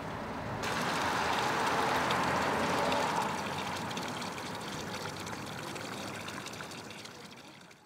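Fountain water jet splashing and pouring steadily onto the ground. It starts abruptly about half a second in and fades out near the end.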